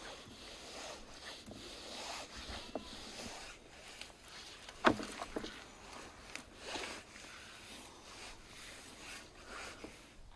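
Large cleaver-style knife slicing into a raw lamb leg: irregular soft cutting and rubbing strokes through the meat, with one sharp knock about five seconds in.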